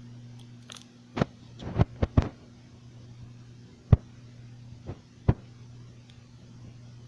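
Ceiling fan motor humming steadily, with a series of sharp clicks and knocks scattered over it, the loudest about four seconds in.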